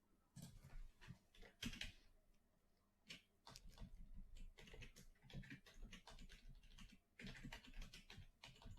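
Faint typing on a computer keyboard: irregular runs of quick key clicks, pausing briefly about two seconds in.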